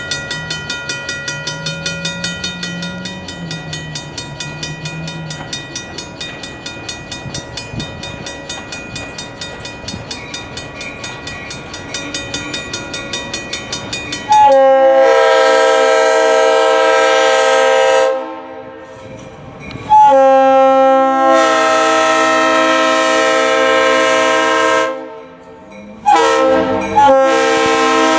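A bell rings steadily at about two and a half strikes a second. About halfway through, the RS3L air horn on GP38 locomotive 7706 blows loud and chorded: two long blasts, a short one and another long one, the grade-crossing signal.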